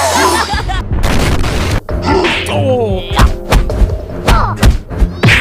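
Cartoon fight sound effects: growls and grunts, then a quick run of hard punching thumps and whacks in the second half, over background music.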